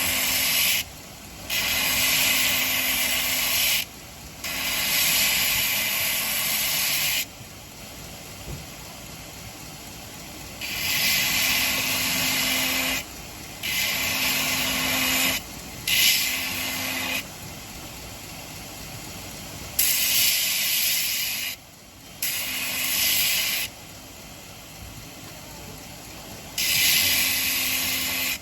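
Belt grinder sharpening a thick stainless steel cleaver: the blade is pressed onto the running belt in about nine passes of one to three seconds each, each pass a loud, high grinding hiss. Between passes the machine keeps running more quietly. The fresh abrasive belt brings up the edge quickly.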